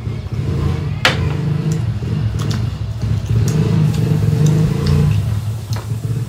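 A motor vehicle engine running close by, a steady low drone that grows louder about three seconds in and eases off again near five seconds, with a few light clicks over it.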